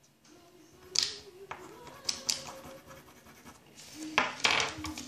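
A small toy pen scratching over paper on a wooden tabletop as it colours, with several sharp taps and scrapes, the densest cluster near the end.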